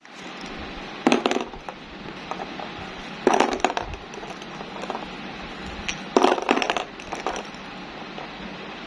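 Hollow plastic toy balls dropping onto a plastic toy base and clattering against each other, in three bursts: about a second in, after about three seconds, and after about six seconds. A steady background hum runs underneath.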